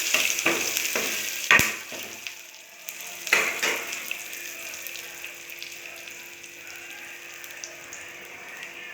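Curry leaves, cumin and black pepper sizzling and crackling in hot ghee in a pan, with a spoon clicking against the pan during the first two seconds and a sharp knock about a second and a half in. After about three seconds the sizzling settles to a steady, quieter fizz.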